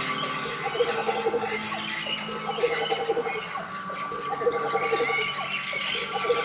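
Experimental ambient music built from sampled animal calls: high chirps and squeals laid over a steady drone and held tones, with a low pulse repeating about every second.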